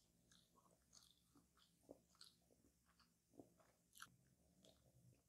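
Faint, close-miked eating of a coconut tart: chewing with soft, crisp crackles of the pastry shell and coconut filling, a few small crunches a second.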